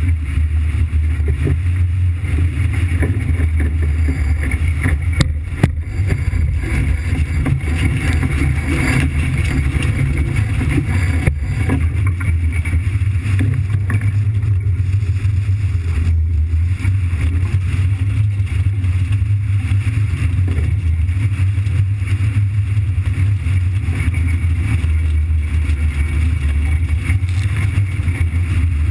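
A vehicle engine running steadily with a deep, even rumble, with a couple of brief clicks about five and eleven seconds in.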